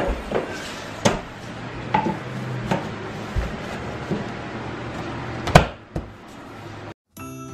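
Floor planks being knocked into place during installation of the last strip along the wall: about eight sharp, irregular knocks, the loudest about five and a half seconds in. The sound cuts off suddenly near the end and music begins.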